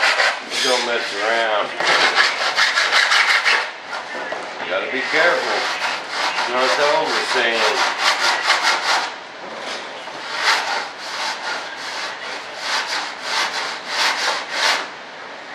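Coarse 36-grit sandpaper on a hand sanding block scraping back and forth along the edge of a flat panel, in quick strokes about four a second. The strokes are loudest in the first few seconds, stop briefly past the middle, then start again, with a wavering squeak on some of them.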